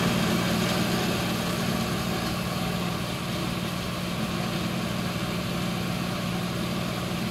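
An engine idling: a steady low hum that holds even throughout.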